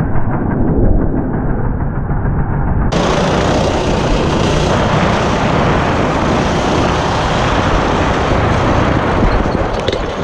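Baja minibike's small single-cylinder four-stroke engine running under throttle on a dirt trail, mixed with heavy wind rush on the helmet camera. About three seconds in the sound suddenly turns brighter and fuller.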